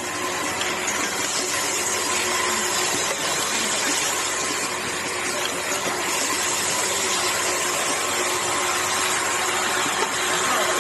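Automatic aerosol-cap assembly machine running: a steady mechanical hum and hiss with a couple of faint steady tones.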